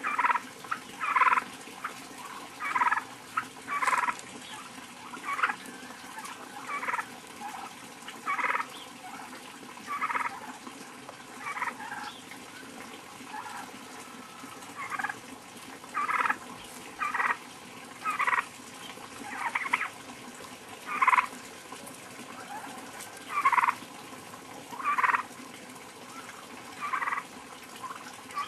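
Heritage turkeys calling over and over, a short call every second or two, some louder than others.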